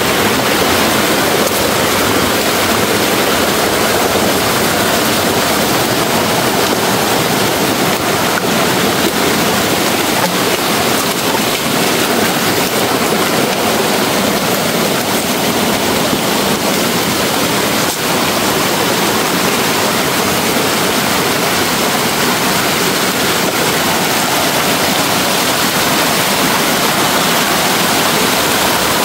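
Rushing stream water running over rocks, a steady unbroken noise.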